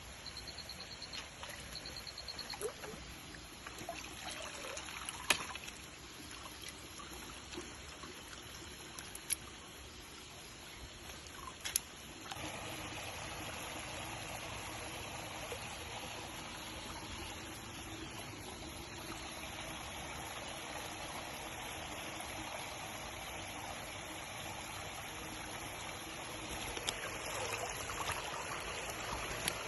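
Water trickling and running, growing louder and fuller about twelve seconds in, with a few sharp clicks in the first half.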